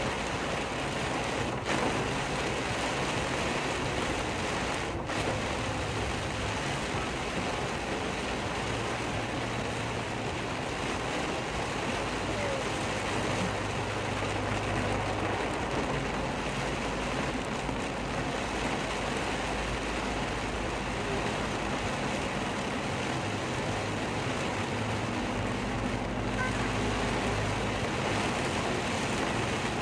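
Very heavy rain falling in a steady downpour, a dense even hiss, with a low hum underneath.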